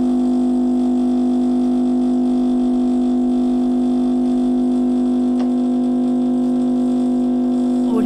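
Espresso machine running with a loud, steady electric hum that holds unchanged throughout.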